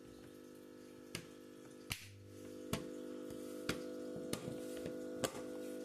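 Plastic clips of a small laptop cover panel snapping into place under pressure: a series of sharp clicks, about one a second, over a steady low hum.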